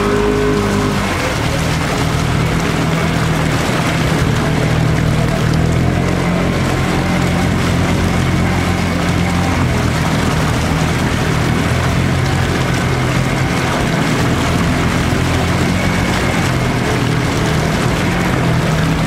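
Polaris Ranger side-by-side engine running steadily under load as it wades through deep water, with the rush of the bow wave surging along the front of the machine.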